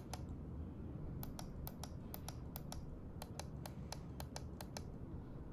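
Dell Premier Rechargeable Mouse MS900's left button clicked repeatedly. One click at the start, then a quick run of clicks, about five a second, from just over a second in until nearly five seconds.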